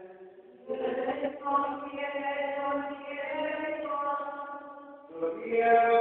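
The Gospel chanted aloud in Greek by a solo voice in Byzantine recitative style, holding long steady notes, with a short pause about half a second in and a brief drop near the end before it resumes louder.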